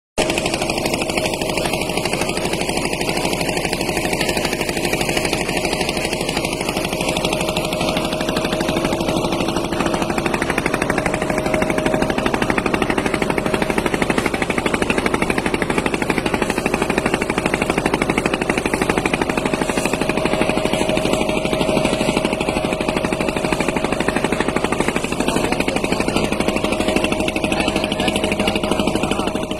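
Boat engine running steadily at an even pace, a continuous mechanical beat with a steady hum.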